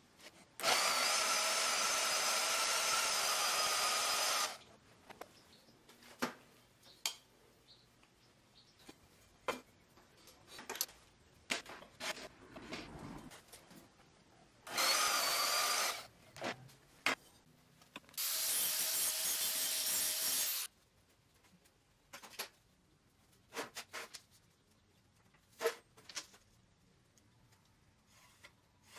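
Wen handheld portable bandsaw running and cutting rectangular steel tubing, with a steady whine, in three runs: one of about four seconds near the start, a short one about halfway, and another of two to three seconds soon after. Between the runs come scattered light knocks and clicks from handling the saw and the steel.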